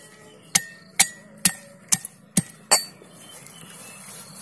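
Pestle pounding dried coconut in a brass mortar: six sharp strikes about two a second, each with a short metallic ring. The strikes stop about three seconds in.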